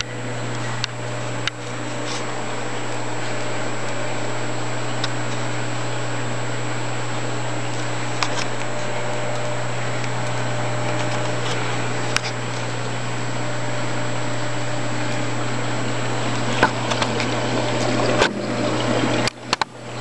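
Steady low hum and water noise from running aquarium equipment: a pump and water moving through the tank and sump. A few faint clicks sound over it, and near the end the sound turns choppy.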